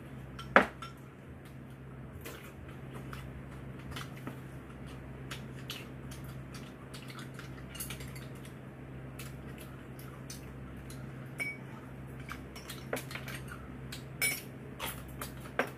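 Cutlery clinking against bowls and dishes during a meal: scattered short clicks, the sharpest about half a second in and a cluster near the end, over a steady low hum.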